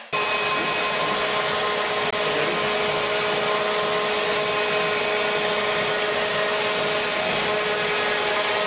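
CNC router's spindle, an electronic variable-speed router, running steadily with a drill bit cutting a foam pattern: a steady motor whine over a rushing hiss.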